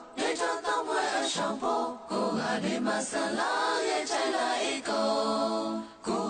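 A song carried by singing voices in short phrases, with a long held note about five seconds in that breaks off briefly near the end.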